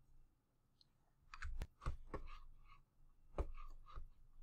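Faint computer mouse and keyboard clicks, about half a dozen sharp clicks in two small clusters starting about a second and a half in.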